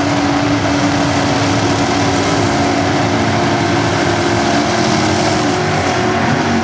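Drag car's engine held at steady revs during a burnout, its rear tyres spinning on the pavement.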